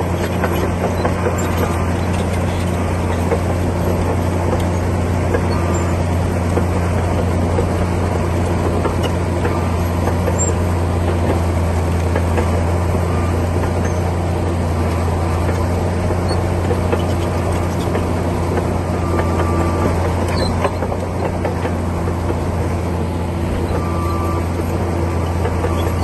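Komatsu D60P bulldozer's diesel engine running steadily with a deep, even drone.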